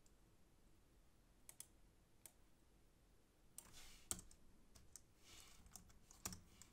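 Near silence broken by a few faint, scattered clicks of computer keys, a small cluster of them a little past halfway.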